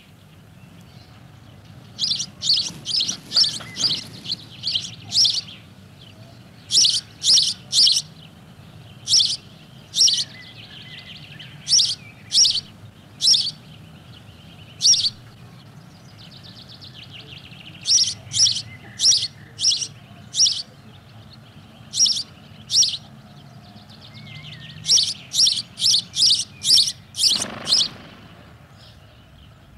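Male house sparrow chirping its plain 'chilp' song: loud, short, high single notes, some in quick runs of several a second and others spaced about a second apart.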